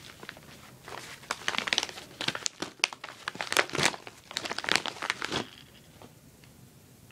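Toy packaging being opened by hand: a quick run of crisp crinkles that stops about five and a half seconds in.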